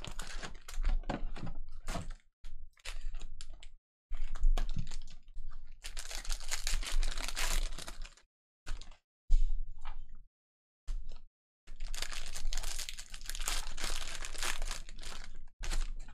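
Plastic trading-card pack wrapper crinkling and tearing open, with cards being shuffled in between: stretches of rustling broken by short gaps and a few sharp clicks.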